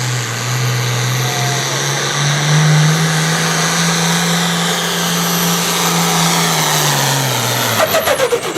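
Pro Farm pulling tractor's turbocharged diesel engine running flat out under load as it drags the sled, the engine note holding high and steady, then sagging and falling away sharply with rapid stuttering near the end as the engine bogs down: it has run out of power against the sled's weight.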